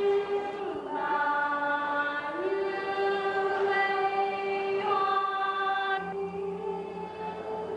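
A choir singing a slow hymn in long held notes, the melody stepping down and back up, with a lower part joining near the end.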